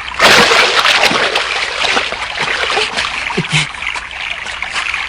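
Cartoon sound effect of a big splash into water about a quarter second in, followed by continuing splashing and churning water that slowly fades.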